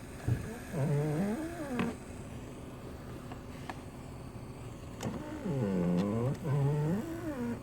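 A weird pitched groaning noise from a 2005 Honda Accord, coming in two spells of wavering moans that rise and fall in pitch, the first about a second long and the second about two seconds long.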